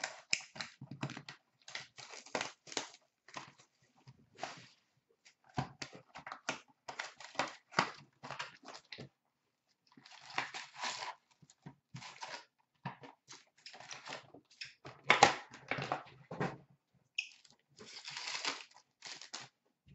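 Plastic wrap and foil hockey card packs of a 2016-17 Upper Deck SP Authentic box crinkling and tearing as the box is opened and a pack ripped open, in irregular short bursts with brief pauses.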